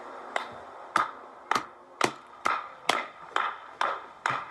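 A steady series of sharp knocks or claps, about two a second, each with a short ringing tail.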